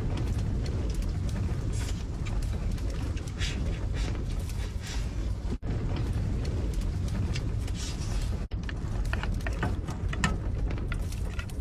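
Strong wind buffeting a small camper van, a steady low rumble, with scattered light clicks and knocks from handling things inside.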